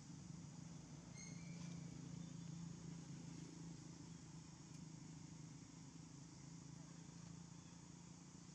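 Near silence: quiet outdoor ambience with a steady low hum and one brief, faint, high-pitched chirp about a second in.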